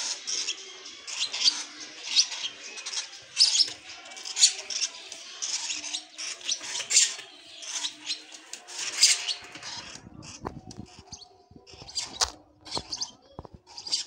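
Lovebird chicks begging while being syringe-fed: rapid, raspy high-pitched cheeps that stop about ten seconds in, followed by a few light clicks and knocks.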